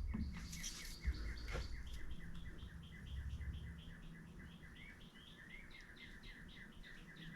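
A small bird chirping faintly in a long, fast series of short notes, with a few rising notes mixed in. A couple of light knocks in the first two seconds.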